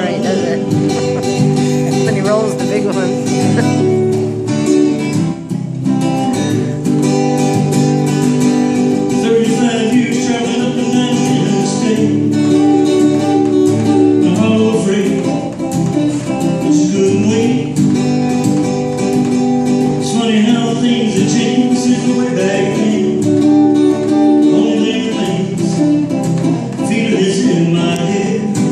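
Acoustic guitar strummed and picked in a steady rhythm, with a man singing over it at times.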